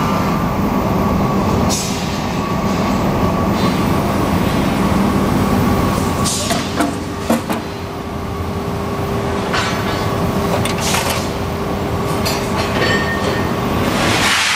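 WMW 10-tonne draw bench running, a steady mechanical hum with a handful of sharp clanks about six to eleven seconds in.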